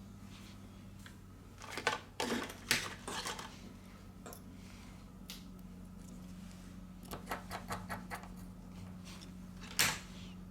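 Small clicks, taps and scrapes of tools and smartphone parts being handled during reassembly of a Samsung A30s. They come in a cluster about two seconds in and another around seven seconds, with one sharp click near the end, over a steady low hum.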